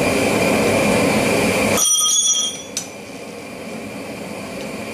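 A steady rushing noise cuts off abruptly about two seconds in, at the moment a hammer blow on a bar over the anvil's hardy rings out with a short bell-like metallic ring; a single sharp tap follows a moment later.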